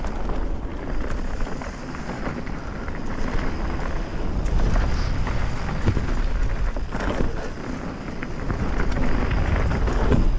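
Wind buffeting the microphone and a mountain bike's tyres rolling over a dirt trail at speed, with a few rattling knocks from bumps about seven seconds in.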